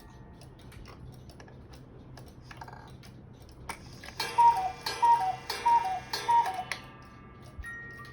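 Hekas chalet cuckoo clock ticking, then about four seconds in the cuckoo calls four times, each call a high note falling to a lower one blown from its bellows pipes.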